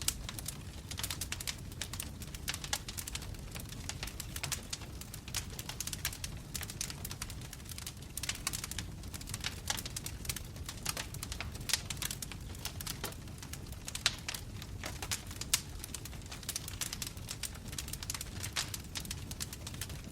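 Wood logs burning in a fireplace, crackling with frequent sharp pops over a low steady rumble of the flames, with a few louder snaps in the middle.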